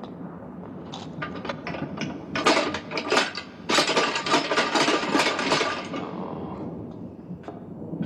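Metal chains rattling and clanking in a dense jangling run that builds about a second in, is loudest from about two to six seconds in, then thins to scattered clinks.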